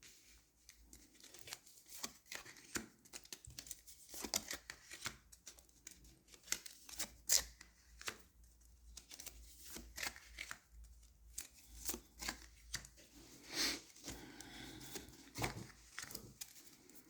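Tarot cards being handled, giving soft, irregular rustles, slides and light taps of card stock, with a few louder snaps scattered through.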